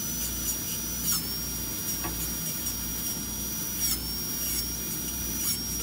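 High-speed dental air-turbine handpiece whining steadily at a high pitch while the bur cuts a cavity preparation; the pitch dips slightly a few times as the bur bears on the tooth.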